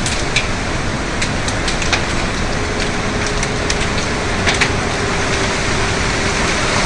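Steady rushing of storm wind and rain as a tornado approaches, with scattered sharp ticks and a faint steady tone through the middle.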